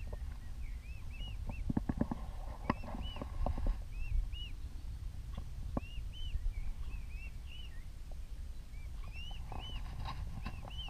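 Mute swan cygnets peeping: short, high calls that rise and fall, repeated in quick clusters, with a few sharp taps about two to four seconds in.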